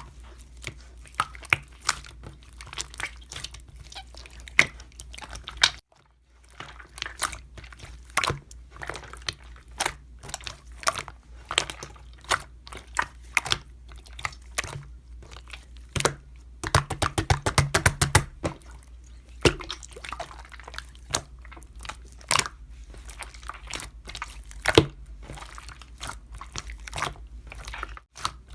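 Hands squeezing and poking slime, giving a string of sharp clicks and wet pops, with a fast run of clicks about two-thirds of the way through. The sound drops out briefly twice.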